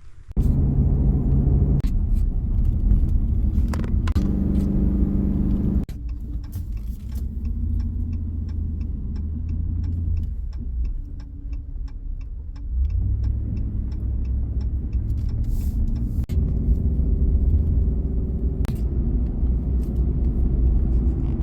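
A car driving: a steady low engine and road rumble whose pitch shifts now and then. A light, regular ticking, about three a second, runs for several seconds in the middle.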